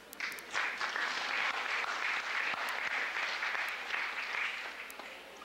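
Audience applauding, starting a moment in and fading toward the end.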